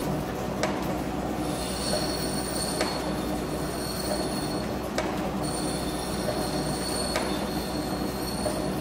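A large metal-shaping machine tool is running with a steady hum. Its tool cuts the metal workpiece with a high-pitched squeal that comes in two long stretches, and a sharp click sounds about every two seconds.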